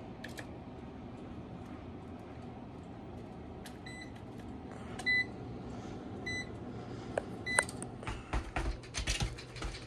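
Four short, high electronic beeps, about a second and a quarter apart, over a steady low hum; clicks and knocks of handling follow near the end.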